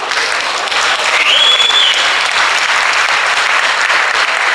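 A stadium crowd applauding, swelling at the start and holding steady. One whistle rises and holds briefly about a second in.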